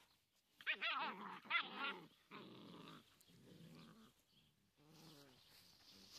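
Puppies growling while play-fighting. The loudest, highest, wavering growls come about a second in, followed by lower, quieter growls.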